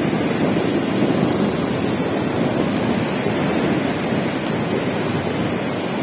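Steady rush of storm surf breaking on a sandy beach, mixed with wind buffeting the microphone.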